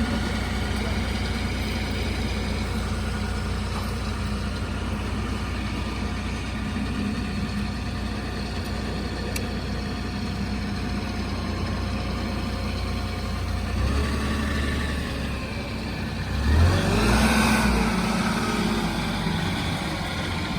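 Truck engine idling steadily, then revving up and back down near the end.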